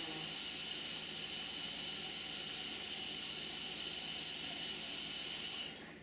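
Steady, even hiss with a faint high tone in it, which cuts off abruptly near the end.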